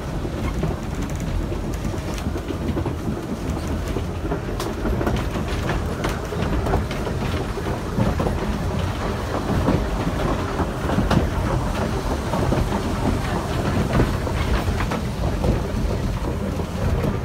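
Manx Electric Railway tram No. 20 running along the track: a steady rumble with wheels clattering over the rails and frequent short knocks, a little busier in the second half.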